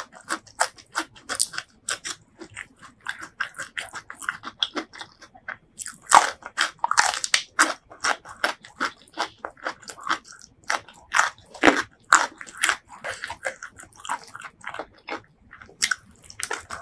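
Close-miked eating sounds: biting into and chewing crunchy raw vegetables and rice, with many sharp crunches several times a second.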